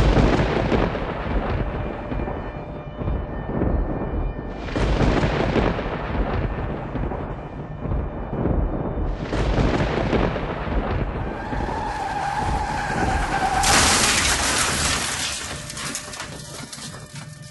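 Intro sound effects for the logo cards: three heavy booming impacts about four and a half seconds apart, each dying away in a long rumble. Near the end these give way to a loud rushing swell that fades out.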